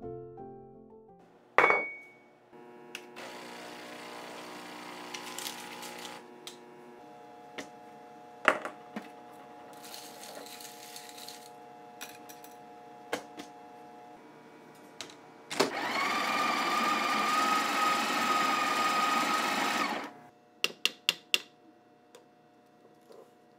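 Coffee-making handling sounds: scattered clicks and knocks, then a Breville espresso machine's built-in burr grinder running steadily for about four seconds, followed by a quick run of about six sharp taps.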